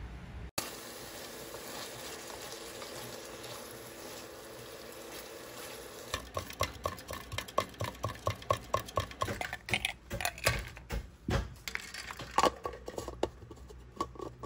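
Food sizzling in a frying pan. From about six seconds in, a utensil stirs it with repeated scraping and clinking strokes against the pan, two to three a second.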